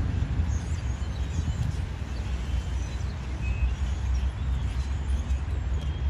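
Steady low outdoor rumble, with faint high bird chirps in the first couple of seconds.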